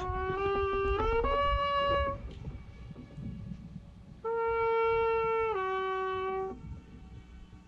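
Trumpet playing two short phrases of held notes toward the rock wall of the lake, the traditional call played there to set off the echo. The first phrase steps up to a higher note about a second in; the second, after a pause, steps down, over a low rumble of wind on the microphone.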